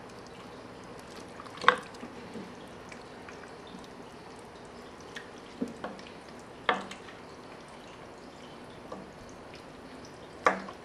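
Wooden spoon stirring thick chili in a large stockpot, knocking against the pot now and then: about six sharp, irregularly spaced knocks, the loudest about a second and a half in and just before the end.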